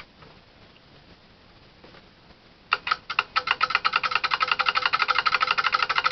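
Relays clicking as they switch the coils of a homemade DC motor built from microwave-oven transformer coils and magnetron magnets. The motor starts about three seconds in, and the clicks quicken to a steady rattle of about a dozen a second as it comes up to speed.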